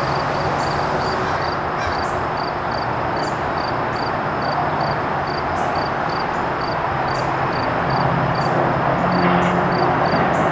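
Freight train's diesel locomotives running on the mainline, a steady engine hum with a rushing noise that grows louder in the last few seconds. Insects chirp steadily, about three chirps a second.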